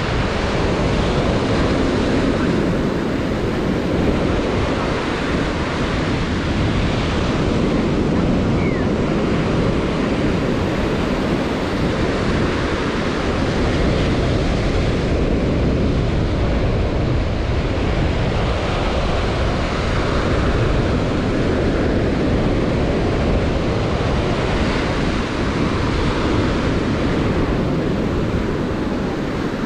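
Ocean surf breaking and washing up a sandy beach: a steady wash of wave noise with no single crash standing out. Wind rumbles on the microphone underneath.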